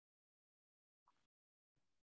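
Near silence: the audio is gated off, with only two barely audible flickers of noise.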